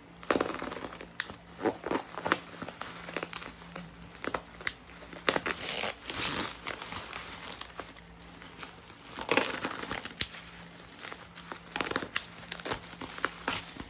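Plastic bubble wrap crinkling and rustling as it is slit with a small cutter and pulled apart by hand, with irregular sharp crackles throughout.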